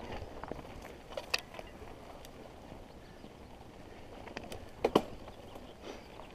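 Mountain bike rolling over a dirt singletrack: tyre noise and rattling clicks from the bike, with a sharp knock a little over a second in and a louder double knock about five seconds in.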